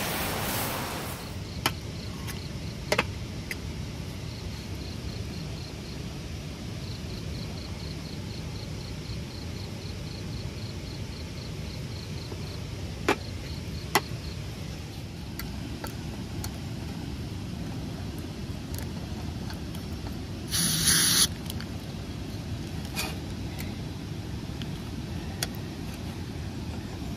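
Insects chirping in an even, pulsing rhythm over a steady low background noise, with a few sharp knocks and a brief hiss about two-thirds of the way through.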